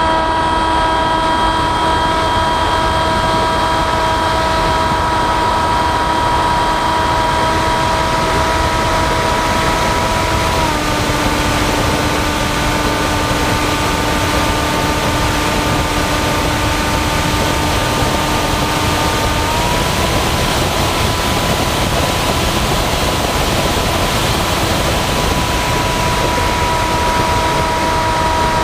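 Radio-controlled flying wing in flight, heard from on board: its motor and propeller give a steady whine over a heavy wash of wind noise. The whine steps down in pitch about a third of the way in, rises again a little past two thirds, and drops once more at the very end.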